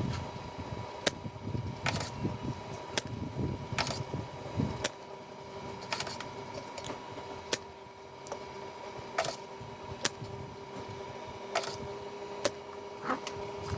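Sharp clicks and snaps of a spring-loaded desoldering pump being cocked and fired while solder is sucked from IC pins, roughly one a second at an uneven pace, over a steady faint hum.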